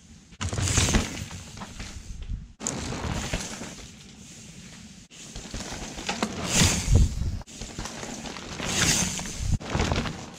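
Mountain bike passing close by on a dirt woodland trail: tyres crunching and scrabbling over dirt and roots, with the bike rattling. It comes in several passes that swell and fade, with abrupt cuts between them.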